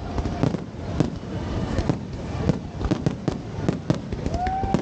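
Fireworks display: many sharp bangs and crackles in quick, irregular succession.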